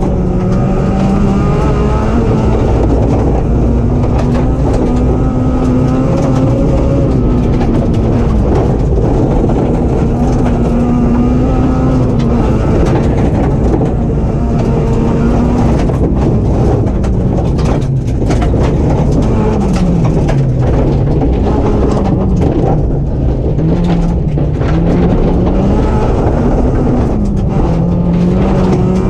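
Rally car's engine running hard on a gravel stage, its note stepping with gear changes and then dropping and climbing several times in the second half as the car slows and accelerates. Gravel clatters under the car throughout.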